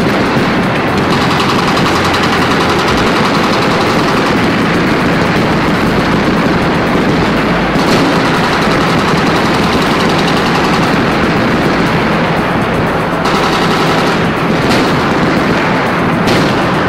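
Sustained rapid machine-gun fire, continuous and unbroken, over background music.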